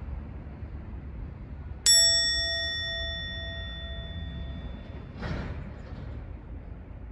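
A single bright metallic ding about two seconds in, ringing on and fading over about three seconds, over a steady low rumble.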